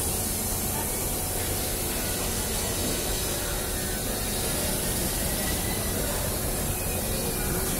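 Steady hiss-like hubbub of a crowded metro station entrance, with many people walking through and no single sound standing out.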